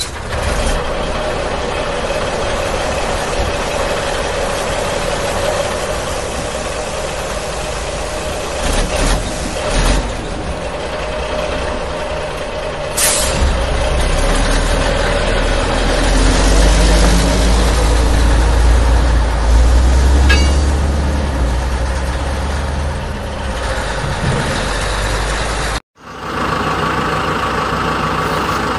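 A steady, truck-like engine running sound with one constant tone through it and a deeper rumble that swells about halfway through. It breaks off abruptly near the end and resumes at a slightly different pitch.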